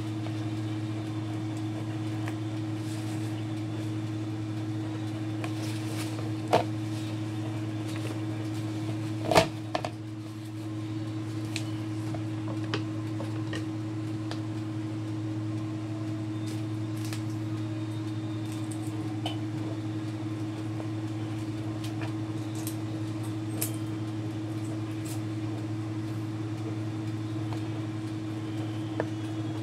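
Steady low motor hum of a kitchen appliance, with scattered light clicks and knocks from handling the raw chicken and kitchen scissors; one sharper knock about nine seconds in.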